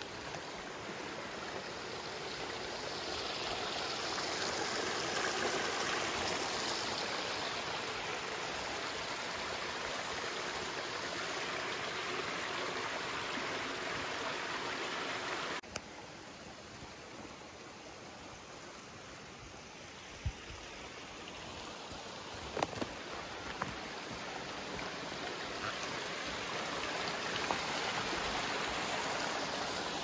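A small forest brook running: a steady rush of water that swells and fades. It drops suddenly about halfway through and builds up again, with a few sharp clicks in the second half.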